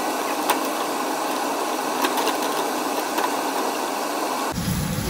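Julienned carrots stir-frying in oil in a wok: a steady frying hiss, with the spatula clicking against the pan a few times.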